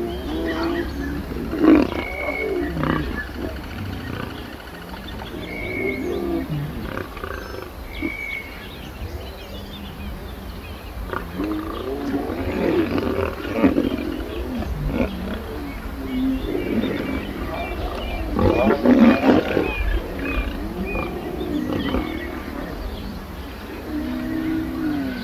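Lions growling and snarling in repeated rough bursts, with the loudest bursts about three-quarters of the way through.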